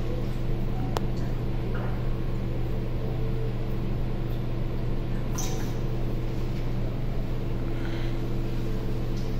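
Steady low machine hum made of several constant tones, like a running fan or motor, with a few faint clicks and light knocks over it.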